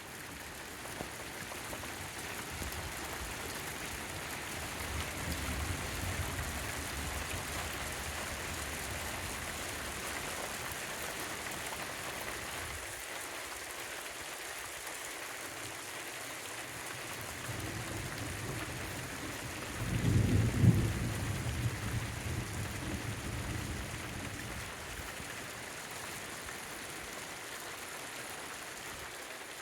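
Steady heavy rain, with a low roll of thunder about five seconds in and a louder thunderclap about twenty seconds in that rumbles away over a few seconds.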